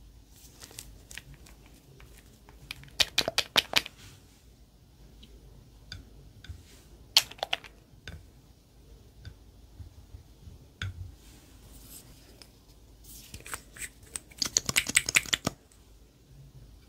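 Three bursts of rapid sharp clicks and crackles, about a second into the first quarter, again near the middle, and a longer run near the end, with faint scattered ticks between.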